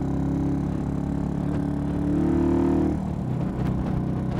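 Single-cylinder engine of a Ryca CS-1 cafe racer motorcycle running steadily at freeway cruising speed. A higher tone in the engine note drops away about three seconds in.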